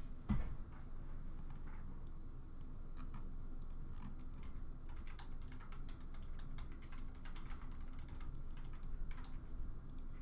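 Typing on a computer keyboard: irregular key clicks, with a soft thump about a third of a second in.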